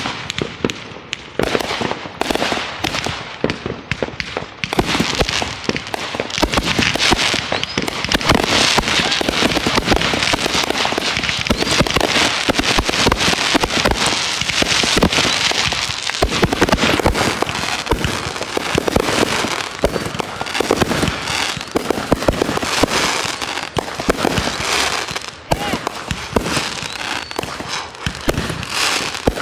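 Fireworks going off in rapid succession: a dense run of cracks and pops that thickens into an almost unbroken crackle from about five seconds in to about sixteen seconds in, then thins out to separate bangs.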